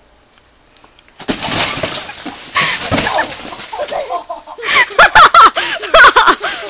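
Styrofoam slabs crunching, cracking and squeaking as a person pushes and crawls into them, starting about a second in, with the loudest squeaks in the second half.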